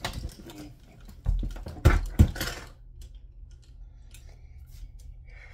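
Rustling and handling noise, then a thud and two sharp knocks about two seconds in as an object falls over in a small room.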